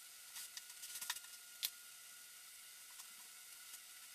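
A few faint clicks and light handling noises from a cordless drill and screws being worked under a benchtop, the loudest click about one and a half seconds in, over a quiet room hiss with a faint steady high hum. The drill's motor does not run.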